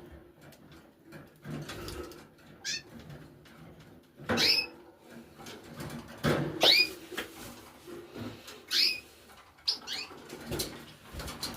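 Canaries giving short chirps that slide down in pitch, about one every two seconds, over soft knocks and rustling.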